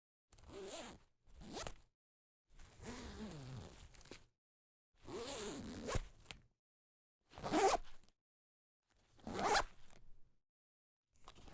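Zippers being zipped in a series of about seven separate pulls, each lasting from half a second to two seconds, with silent gaps between them.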